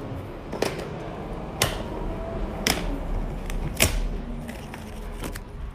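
Thin vinyl architectural film being handled and lifted by hand, giving sharp crackles and clicks about once a second, with smaller ones near the end.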